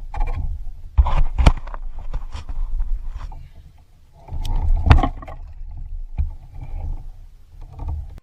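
Sharp knocks and thumps on a kayak hull over a low rumble of wind on the microphone, as a redfish struggles in an angler's grip and gets loose; the loudest knocks come about 1, 1.5 and 5 seconds in.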